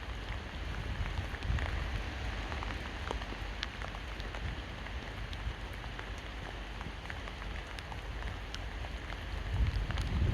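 Steady rain falling, with many single drops ticking sharply against a surface. A low rumble of wind on the microphone runs underneath and swells near the end.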